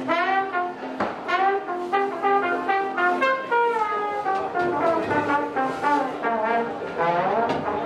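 A brass instrument playing a melody, with some sliding notes.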